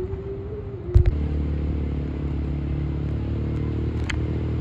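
A small engine running steadily with a low, even hum, which sets in abruptly after a sharp click about a second in.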